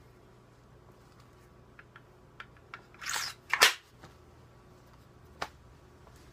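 Knife sliding into a Kydex shell sheath: a few light plastic ticks, a short scrape about three seconds in, then a sharp click as the sheath locks at the pommel. One more single click comes near the end.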